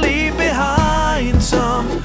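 A man singing a slow song to his own strummed acoustic guitar, picked up by a wireless handheld vocal microphone.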